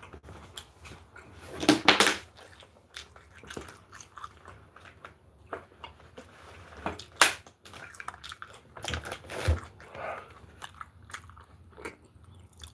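Close-up chewing and biting of a spicy chicken burger, with scattered short crunches and a few louder sharp crackles about two seconds in and about seven seconds in.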